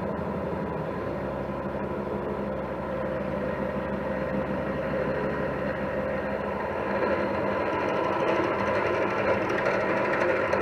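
Metal lathe running steadily with a large workpiece spinning in the chuck. About two-thirds of the way through the sound grows louder as a twist drill starts cutting into the spinning work.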